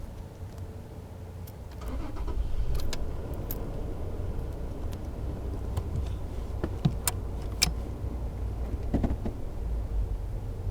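Toyota Tacoma pickup's engine running, heard from inside the cab as a steady low rumble that grows louder about two seconds in, with several sharp clicks and rattles scattered through it.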